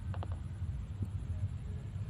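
Steady low rumble with a few faint clicks, two close together near the start and one about a second in.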